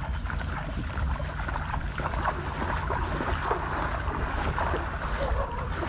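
Wind buffeting the microphone in a steady low rumble, with irregular squelching footsteps through wet mangrove mud and shallow water.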